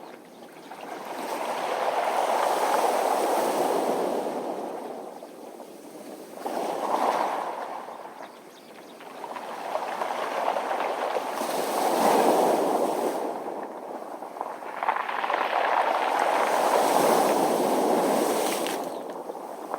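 Sea waves washing in and out over a round-pebble beach, with the hiss and rattle of stones as the water surges, swelling and fading in slow surges every few seconds.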